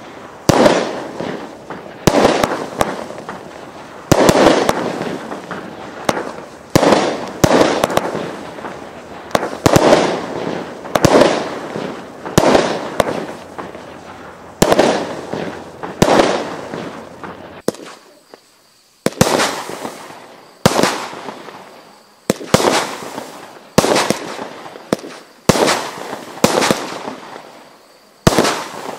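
8-Ball multi-shot fireworks cake firing shot after shot, about one a second. Each shot is a sharp bang that dies away over about a second, with a brief lull a little past halfway.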